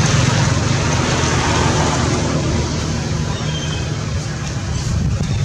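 Steady low engine rumble of motor traffic, easing a little after about two seconds.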